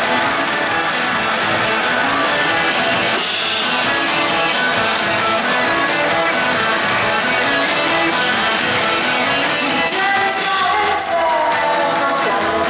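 Psychedelic rock band playing live: electric guitars and drums with an even cymbal beat of about two strokes a second, and gliding guitar or vocal notes near the end.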